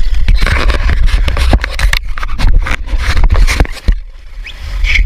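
Wind buffeting a camera microphone out on a river raft: a rough low rumble with many sharp knocks and scrapes, easing briefly near the end.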